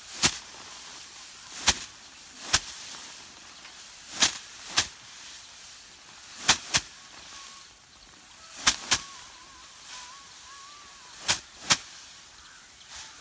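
Harvested rice sheaves being beaten by hand against a hard surface to thresh out the grain: sharp whacks, often in quick pairs, every second or two.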